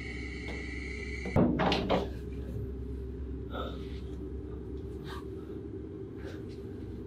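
A loud knock-like clatter of a few quick strikes about a second and a half in, over a low steady rumble, followed by a few faint clicks. A high steady tone cuts off just before the strikes.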